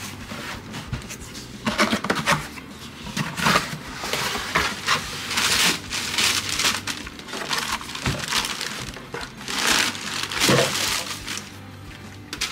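Cardboard shoebox being opened and the printed tissue paper inside crinkling and rustling as it is unfolded, in irregular bursts starting about a second and a half in.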